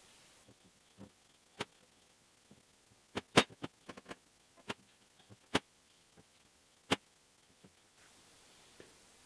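Irregular light clicks and taps of a steel part being handled, turned and wiped with a rag on a metal workbench, about a dozen in all, the loudest about three and a half seconds in.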